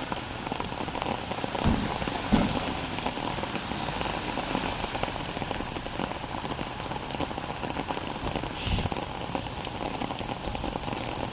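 Steady rain falling, a dense patter of small drop hits, with a few short dull thumps, the loudest about two and a half seconds in and another near the end.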